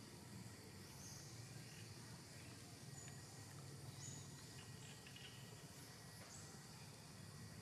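Near silence: faint outdoor ambience with a low steady hum and a few faint, short high chirps scattered through it.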